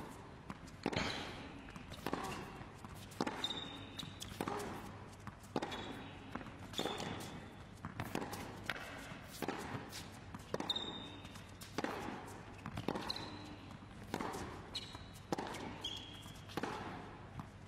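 Tennis rally on a hard court: the ball is struck back and forth about once a second, each hit echoing in the hall, with short squeaks of shoes on the court between shots.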